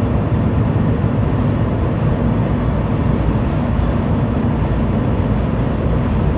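Steady low roar of strong wind on the microphone mixed with the rumble of a ship's engine, running without a break while the ship manoeuvres at slow speed.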